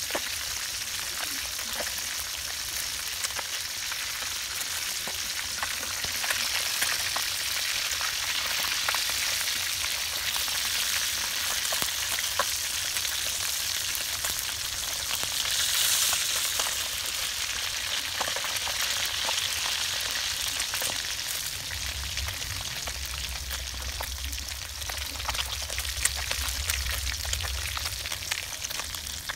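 Fish frying in hot oil: a steady sizzle with scattered crackles and spits.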